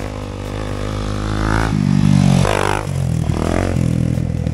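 Off-road motorcycle engine revving as the bike rides up to the jump, getting louder to a peak about two seconds in, then the revs rise and fall a few times.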